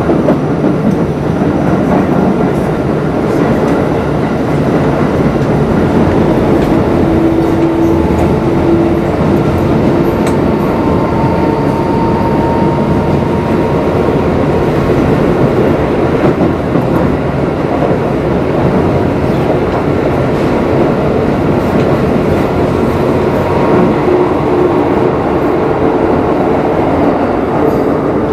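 Keikyu 1000 series electric train (set 1033, the 'doremi' Siemens-inverter set) running through the subway tunnel, heard from inside the car. Its wheels rumble steadily on the rails, with a few faint held motor tones partway through.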